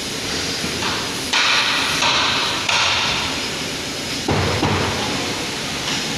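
Railway coach workshop noise: a steady mechanical din with two stretches of louder hiss in the first half. A sudden louder low-pitched noise sets in about four seconds in.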